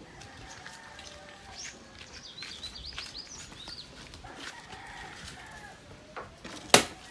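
Birds chirping, with many short rising and falling calls, alongside chickens. One loud sharp knock comes near the end.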